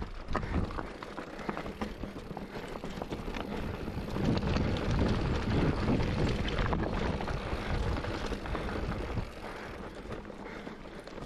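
Mountain bike descending a loose rocky trail: tyres crunching and skittering over stones, with the bike rattling over the bumps and wind buffeting the microphone. It eases off and gets quieter in the last couple of seconds.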